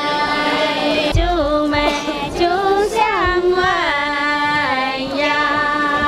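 A group of Dong women singing a folk song together in high, bright voices over a steady held lower note. A couple of low thumps come about a second and three seconds in.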